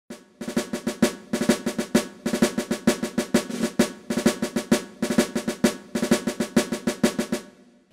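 Intro music built on a snare drum playing a quick pattern of rolls and strikes, several hits a second, fading out near the end.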